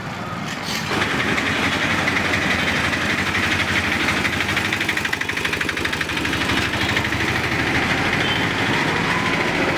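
Small vehicle engine running close by with a rapid, steady pulse, getting louder about a second in.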